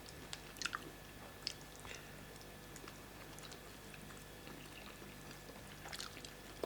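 Faint chewing and a few soft, short mouth clicks from people eating, over a low steady room hum.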